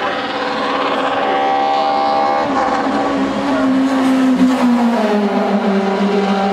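Racing car's engine running at high revs as it climbs the hill, its note dropping about five seconds in.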